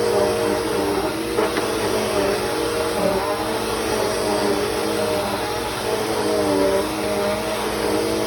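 Bissell CleanView 3536 bagless upright vacuum cleaner running while vacuuming, a steady motor hum whose pitch wavers slightly.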